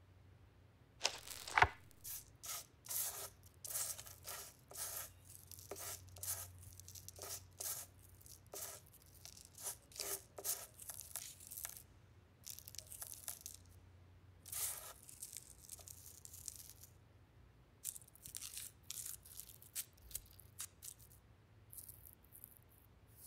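Dry crinkling and rustling of paper and loose tobacco handled close up while a cigarette is worked by hand, in many short, irregular rustles. A sharp click about a second and a half in is the loudest sound.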